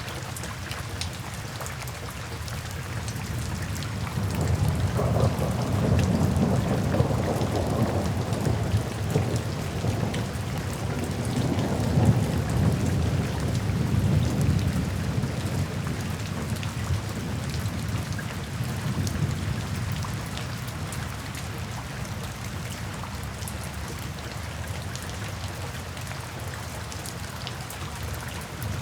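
Steady rain falling with a roll of thunder that swells about four seconds in, rumbles for around fifteen seconds and fades away, leaving the rain.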